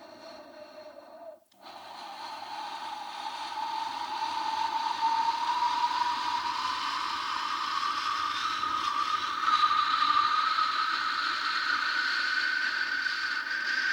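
Electronic noise, a hiss with a tone in it that glides slowly upward. It cuts out briefly about a second and a half in, then comes back and grows steadily louder.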